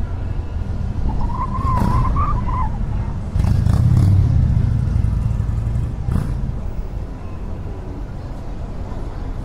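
Car driving on a town street: a steady low rumble of engine and tyres that grows louder about three seconds in and eases off again about six seconds in, with a few short knocks.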